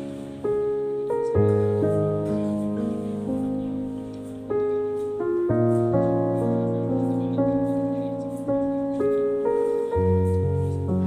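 Slow, gentle piano music: soft chords struck every second or few and left to ring and fade.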